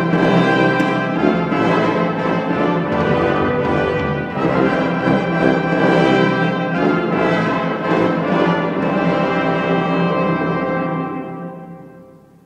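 Orchestral classical music with brass, loud and sustained, dying away over the last couple of seconds.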